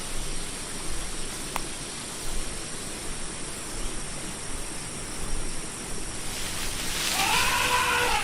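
Steady outdoor hiss, then near the end an elephant trumpeting: one call that rises and falls in pitch.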